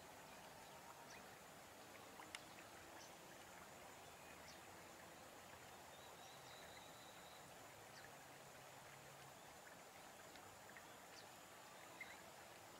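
Near silence: faint outdoor background hiss with a few faint, scattered ticks.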